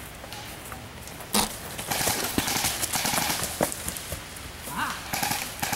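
Footsteps running over dry leaf litter and rocks, with a rustle of brush and small knocks. One sharp crack about a second and a half in is the loudest sound.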